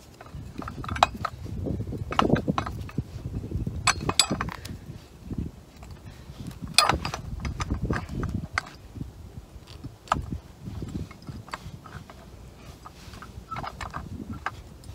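Irregular metallic clicks and clinks of steel lock wire being threaded and twisted around the bolt of a steel shackle on a fire bucket's release head, safety-wiring the bolt so it cannot unwind in flight.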